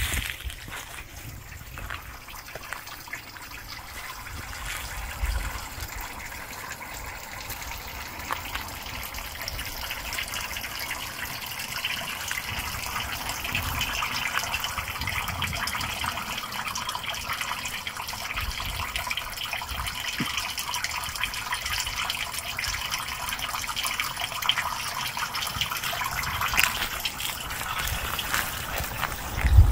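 Running water: a steady noise that grows louder from about ten seconds in.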